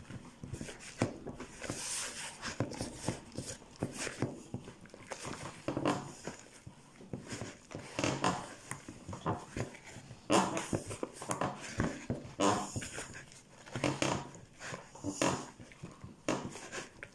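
Hands kneading and pressing pastry dough together in a plastic mixing bowl: irregular squishing and rubbing with small knocks against the bowl.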